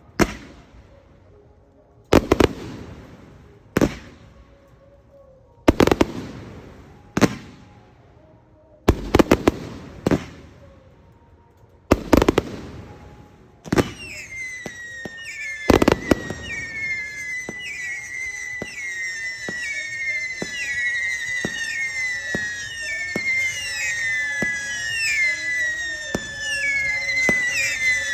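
Fireworks display: aerial shells booming every couple of seconds, often two in quick succession, each dying away with a long echo. About halfway through a dense barrage of whistling fireworks takes over, many falling whistles overlapping over a steady crackle of small pops.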